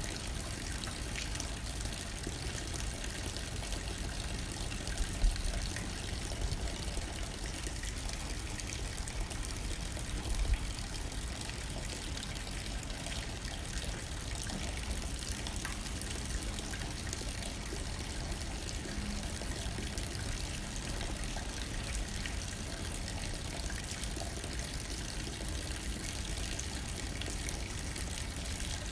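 Steady rain pattering against a window pane with light wind, an even hiss without let-up. Two brief low thumps stand out, about five seconds and ten seconds in.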